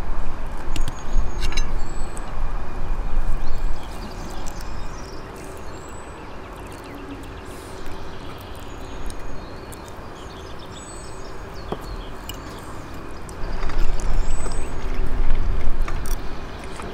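Wind buffeting the microphone in gusts, loudest at the start and again near the end, with small birds chirping in the background and a few light clicks.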